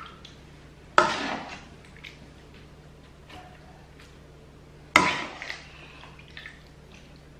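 A metal spoon knocking twice against the pans, about four seconds apart, each knock ringing briefly, with light clinks and scrapes between as chicken pieces are spooned from a cream sauce onto vegetables and noodles.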